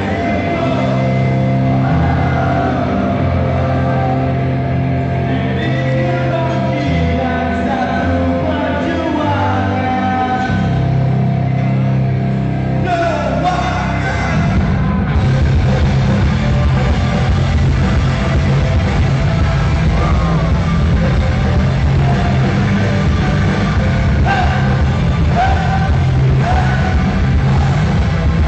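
Live rock band playing loud with a lead singer. About halfway through, the song turns into a denser, louder, driving section.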